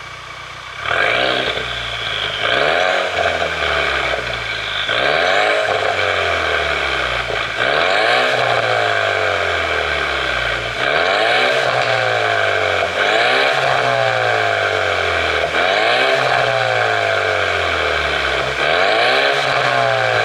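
Ford Mustang's 2.3-litre turbocharged four-cylinder EcoBoost engine, free-revved about eight times after a quieter first second: each blip rises and falls back, every two to three seconds. It carries a pop-and-bang tune meant to make the exhaust pop and crackle as the revs drop.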